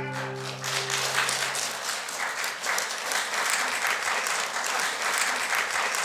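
Audience applauding at the end of a song, while the last guitar chord rings out and fades over the first second or two.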